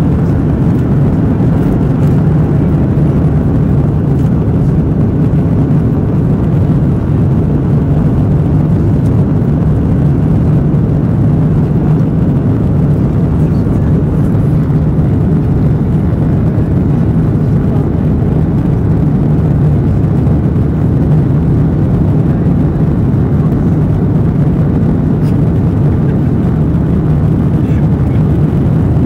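Steady low drone inside the cabin of a Boeing 737-700 in its initial climb after takeoff: the CFM56-7B turbofan engines at climb power and the rush of air past the fuselage, heard from a window seat over the wing.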